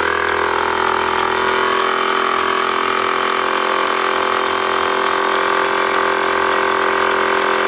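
Mamod MEC1 toy steam engine, a small single-cylinder oscillating engine, running steadily under live steam just after being turned over by hand. It is driving a toy workshop's shafts and pulleys through string belts.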